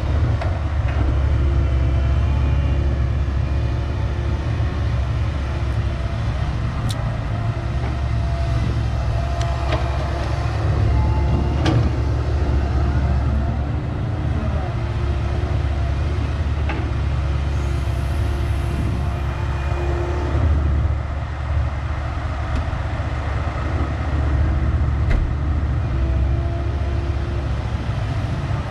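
Komatsu crawler excavator's diesel engine running steadily with a heavy low rumble, with a few sharp knocks now and then.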